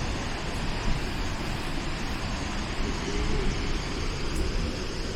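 Snoqualmie Falls, a 268-foot waterfall: a steady, even rush of falling water with a heavy low rumble.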